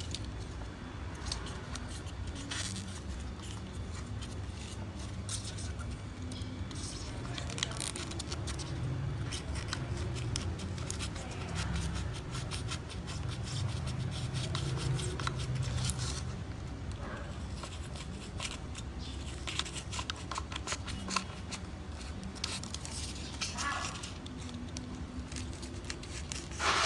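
Irregular crisp clicks and rustling of hand work, over a low steady hum.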